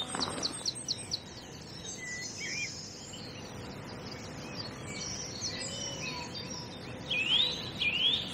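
Songbirds singing in a dawn chorus: a quick run of high chirps in the first second, scattered calls, then louder sweeping whistled notes near the end, over a faint steady hiss of outdoor background.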